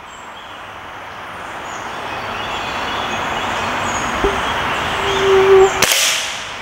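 A rushing noise, like traffic passing, grows steadily louder for about five seconds and cuts off abruptly with one sharp crack about six seconds in: the shot of a .22 break-barrel pellet rifle.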